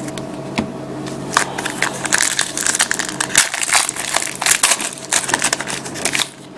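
Foil wrapper of a trading-card pack crinkling and tearing as it is opened, a dense run of crackles starting about a second and a half in and stopping just before the end.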